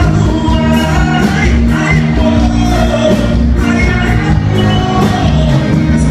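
Live sertanejo band playing: a man singing into a microphone over electric bass guitar and drums.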